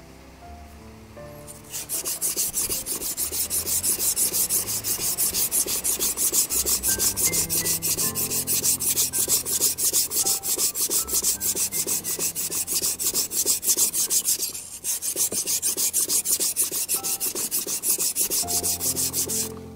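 Steel kitchen knife blade stroked rapidly back and forth on a wet whetstone, laid nearly flat to thin the blade: an even run of gritty scraping strokes that starts about two seconds in and pauses briefly near the end.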